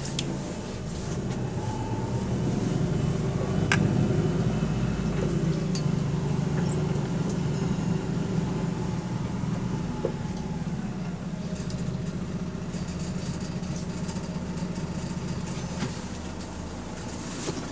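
Double-decker bus heard from inside, its engine and drivetrain running with a low drone that grows louder from about two seconds in, as under acceleration, then eases off. A sharp click sounds just before the four-second mark.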